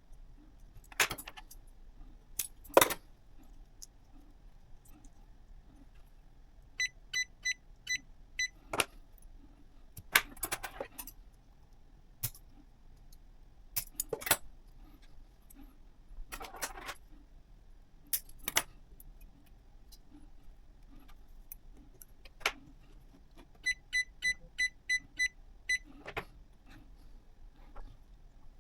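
Scattered clicks, knocks and a light metallic clatter of small parts being handled. Twice a short run of high electronic beeps sounds, four beeps the first time and about seven the second.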